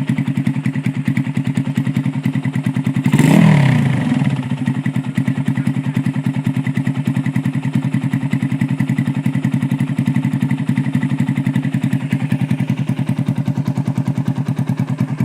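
Yamaha Sirius single-cylinder four-stroke engine with a 62 mm big-bore piston kit, idling with an even, lumpy pulse. A short blip of the throttle comes about three seconds in.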